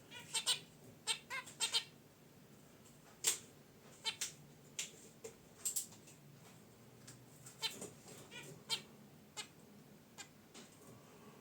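Zebra finches calling, a run of short honks at irregular intervals, some in quick clusters, thinning out near the end.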